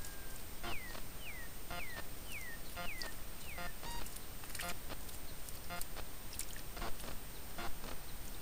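A bird calls a quick series of about six short notes, each falling in pitch, over the first few seconds. Sharp ticks repeat irregularly throughout.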